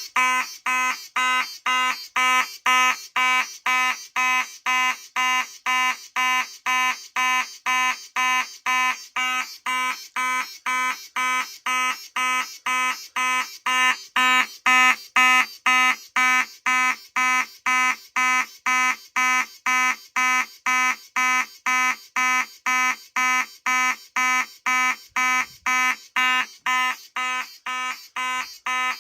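Simplex 2903-9001 fire alarm horn sounding in alarm off a Simplex 4002 panel: a loud, buzzy tone pulsing evenly on and off about twice a second.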